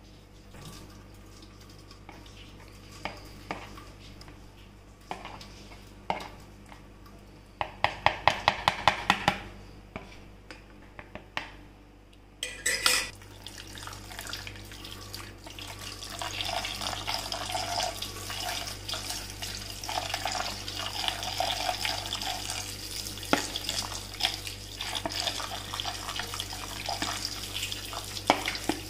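Chhena (curdled milk solids) rinsed in a plastic bowl: a metal spoon clicks against the bowl, with a quick run of about ten sharp clicks some eight seconds in, then from about halfway through tap water runs steadily into the bowl while the spoon keeps stirring.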